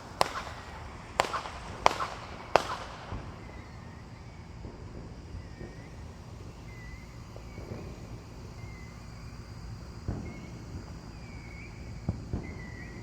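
Fireworks exploding: four sharp bangs in the first three seconds, then a few fainter, duller booms near the end.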